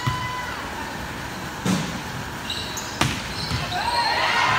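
Indoor volleyball rally: three sharp hits of the ball, roughly a second and a half apart. Sneaker squeaks and voices from players and spectators pick up and grow louder near the end.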